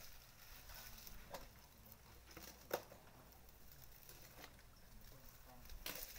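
Faint, scattered crackles of dry twigs and branches as an elephant feeds on cut browse, with one sharper snap about three seconds in.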